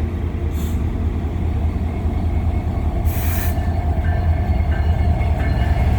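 Diesel-electric freight locomotives, a CN SD70M-2 and an SD40-2W, approaching slowly with a steady low engine rumble that grows gradually louder. A brief hiss comes about three seconds in.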